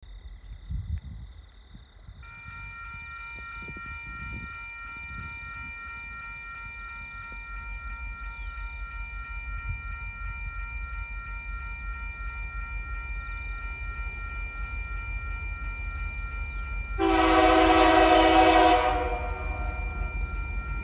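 Level crossing warning bells start ringing about two seconds in and keep pulsing steadily, while the low rumble of the approaching TasRail diesel locomotives TR02 and 2053 slowly grows louder. About seventeen seconds in, the lead locomotive sounds its horn in one long blast of nearly two seconds, the loudest sound here.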